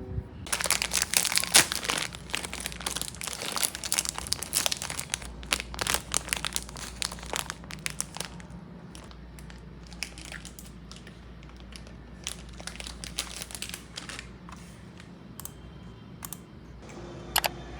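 Packaging crinkling and rustling as it is handled, dense for the first several seconds, then sparser, with a couple of sharper crackles near the end.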